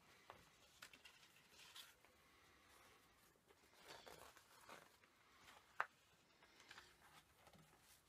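Faint paper rustling and small handling clicks as a folded poster is taken out and opened, with one sharper click about six seconds in.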